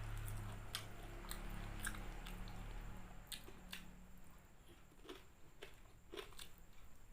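Chewing crispy fried chicken, with sharp, irregular crunches of the coating about once a second.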